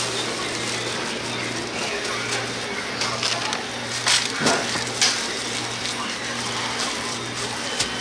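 Busy market stall ambience: a steady noisy background with faint voices and a low hum that comes and goes, and a few short knocks about halfway through.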